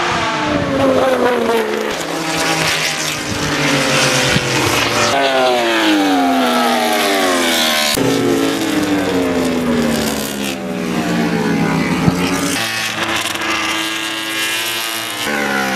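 MotoGP racing motorcycle engines at speed, several loud passes in turn, each engine note sliding down in pitch over a couple of seconds. The sound changes abruptly a few times from one pass to the next.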